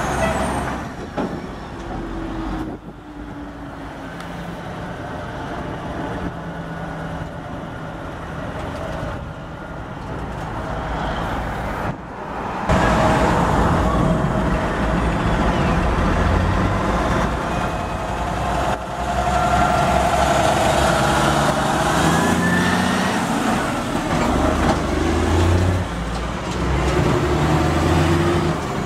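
Diesel semi trucks hauling belly-dump gravel trailers driving past one after another, engines running under load and rising in pitch as they pull away through the gears. Louder from about 13 seconds in as trucks pass close by.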